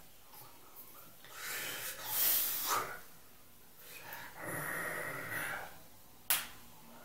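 A man's breathy, half-whispered voice in two stretches with loud breaths between, and one sharp click about six seconds in.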